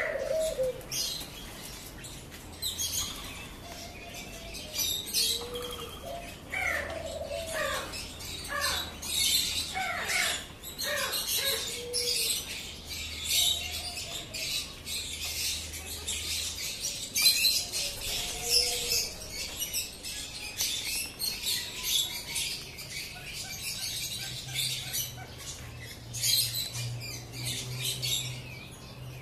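Many birds calling together in an aviary: a dense, continuous chatter of short high chirps, with lower falling and arching calls from other birds mixed in.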